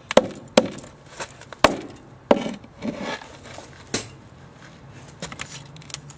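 Repeated hard, sharp blows striking an electronic sound-making pen to smash it, about seven irregularly spaced knocks, fading to fewer and lighter ones in the second half.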